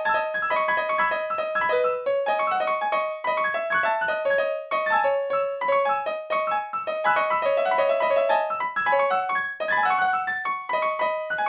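Piano music, a quick, continuous flow of struck notes with short breaks every few seconds.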